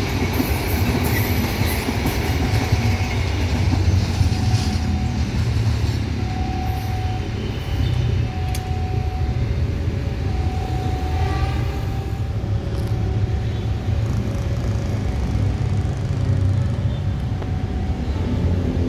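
Passenger train coaches rolling past close by: a steady low rumble of steel wheels on the rails.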